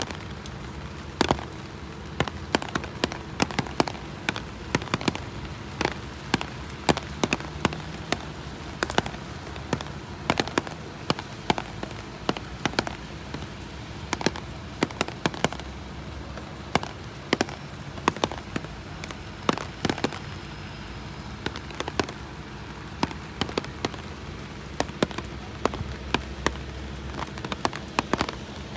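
Steady rain, with large drops tapping irregularly close to the microphone, a few sharp taps a second.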